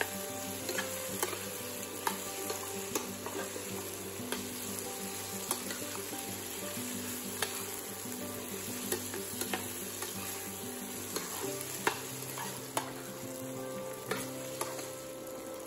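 Mutton, onions and cilantro sizzling in oil in a stainless steel frying pan while a spatula stirs and scrapes through them, with irregular clicks of the spatula against the pan.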